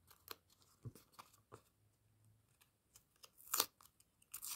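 A small handmade paper packet being handled and opened: a few faint paper taps and rustles, a louder rustle about three and a half seconds in, then the paper tearing open just before the end.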